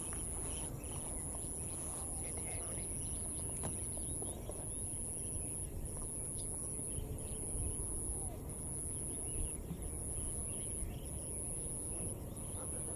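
Outdoor ambience. A high, steady buzz breaks off briefly about once a second over a low rumbling haze, with faint bird chirps here and there.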